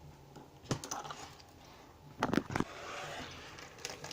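A few light clicks and taps of small metal lock parts being handled and set down, in small groups about a second or two apart.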